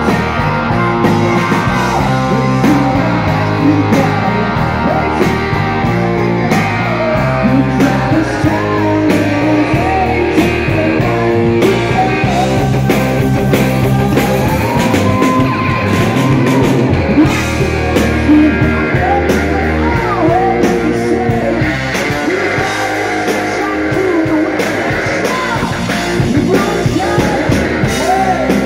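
Loud rock music led by electric guitar, with bending guitar notes over a steady drum beat.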